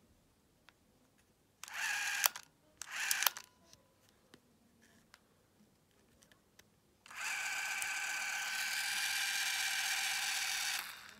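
Pentacon Pentaka 8 cine camera's spring-wound clockwork motor running the film transport with a steady mechanical whir. It runs in two short bursts about two and three seconds in, with faint small clicks from the winding key between, then a steady run of nearly four seconds that stops just before the end.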